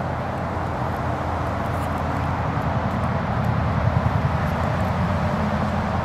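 Steady outdoor background rumble and hiss, with no clear bird call.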